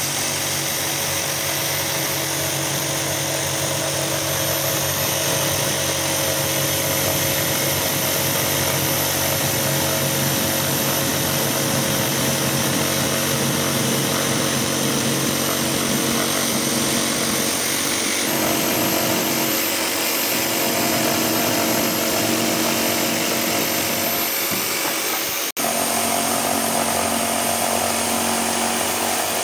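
Hitachi Koki CJ 90VST jigsaw running steadily as it saws through an MDF panel along a marked line, with a slight change in tone about 18 seconds in and a momentary break about 25 seconds in.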